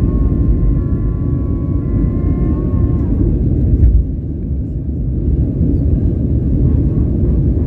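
Airbus A319 cabin noise in the climb after takeoff: a steady, deep rumble of the jet engines and airflow. For about the first three seconds a high, slightly wavering held tone with overtones sounds over it and then stops, and a brief louder thump comes about four seconds in.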